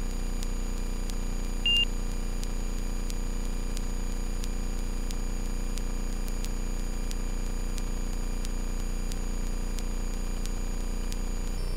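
A Carbon Cub FX-3 light aircraft's engine and propeller droning steadily as the plane climbs out after takeoff, with a single short electronic beep a little under two seconds in.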